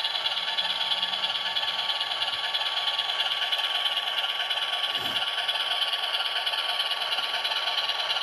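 Model diesel locomotive's DCC sound decoder playing an ALCO diesel engine sound through its small speaker, a steady running rumble with a faint click about five seconds in, while the powered model creeps along at low speed.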